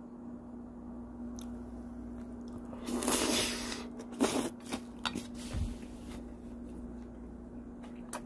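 Close-up eating sounds: wet chewing and crunching of seasoned pork belly and crisp vegetable stems, loudest about three seconds in, with sharp clicks of wooden chopsticks against a stainless-steel bowl. A steady low hum runs underneath.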